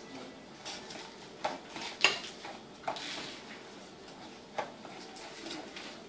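A silicone spatula stirring and scraping chili powder in oil inside a thin aluminium pot, with a few irregular knocks against the pot's side, the loudest about two seconds in.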